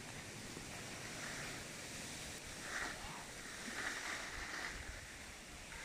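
Cross-country skis sliding over snow: a steady hiss with a few louder swishes from the strides.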